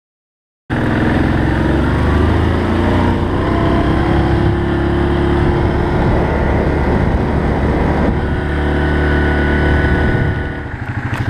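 After a brief silence, a 2017 Yamaha Grizzly 700 ATV's single-cylinder engine runs steadily as it rides along a road. About ten seconds in it eases off to a slower, pulsing run as the ATV slows.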